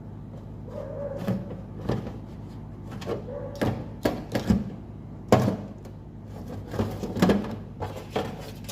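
Crabs' shells and claws clicking and knocking, irregular sharp taps at uneven intervals over a steady low hum.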